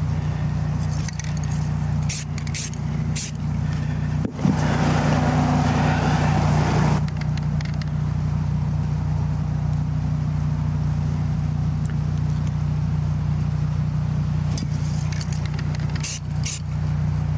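Aerosol spray paint can giving one spray of about three seconds, a few seconds in, over a steady low hum. A few light clicks come before and near the end.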